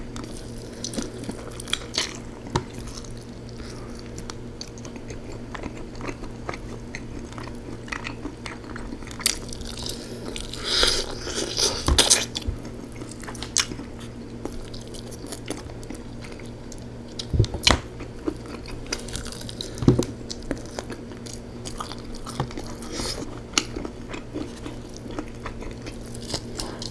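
Close-miked eating of rotisserie chicken: meat pulled apart by hand and chewed, with scattered wet smacks and clicks and a louder, denser stretch of chewing about a third of the way in. A steady low hum runs underneath.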